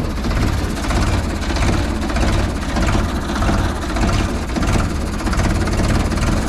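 Tractor diesel engine running loud and steady as the tractor drives along, heard close to its exhaust stack.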